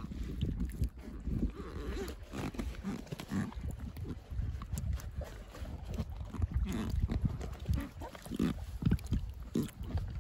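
Wind buffeting the microphone while choppy lake water sloshes and slaps against a rubber float tube: an uneven low rumble with irregular splashes.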